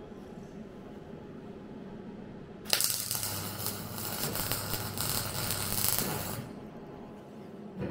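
MIG welder arc crackling on car body sheet steel: a single run of about three and a half seconds that starts suddenly a little under three seconds in and cuts off near the end.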